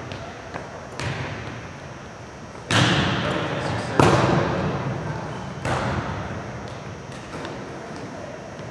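A volleyball being served and passed in a gymnasium: about five sharp slaps of hands and forearms on the ball, one every one to two seconds, each echoing off the hall's walls. The hit about four seconds in is the loudest.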